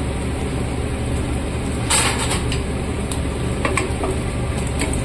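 A flat spatula clattering and scraping in a non-stick kadai of hot mustard oil with whole spices and dried red chillies. There is a short clatter about two seconds in and lighter knocks near the end, over a steady low hum.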